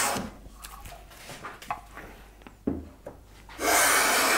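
Hand plane shaving along the edge of a thin ramin strip: one stroke ends just after the start, a few light knocks and a low thump follow as the plane is brought back, then another long stroke begins near the end.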